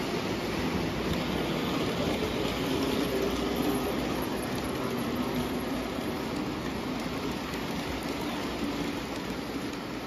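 O gauge model passenger train's metal wheels rolling over three-rail tinplate track, a steady rumble with a faint hum that swells a little about two to five seconds in as the cars pass close.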